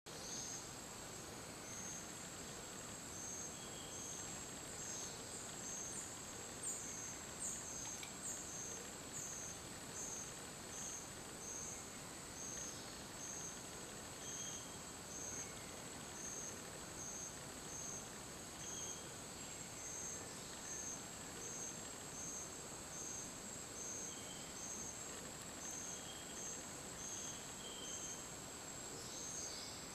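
Insect chorus: a steady high-pitched buzz with a high chirp pulsing in a regular rhythm, a little more than once a second. A few short falling chirps come between about five and nine seconds in.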